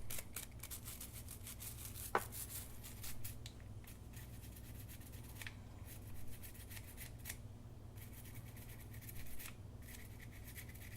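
Faint scratchy scrubbing of a multimeter's dirty, corroded battery contacts being cleaned with alcohol, in bouts with a couple of short pauses, over a steady low hum.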